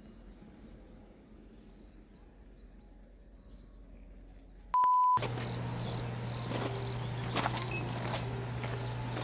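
Crickets chirping faintly in short repeated chirps. About halfway through, a short steady beep sounds; after it the background is louder, with a steady low hum under the continuing chirps and a few clicks.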